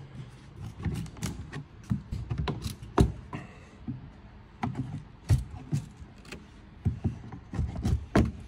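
Flathead screwdriver prying the lid off a plywood shipping crate: irregular knocks, taps and creaks of the wood as it works loose, with a sharp knock about three seconds in and a quick run of knocks near the end.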